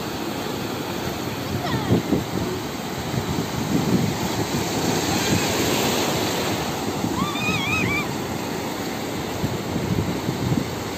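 Shallow ocean surf washing in and out around the feet at the water's edge, with waves breaking offshore.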